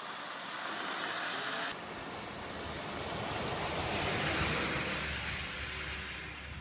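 Vehicles driving through a flooded street, their tyres throwing up water in a continuous splashing wash: first a car, then, after an abrupt change, a truck whose wash swells to its loudest about four seconds in and fades away.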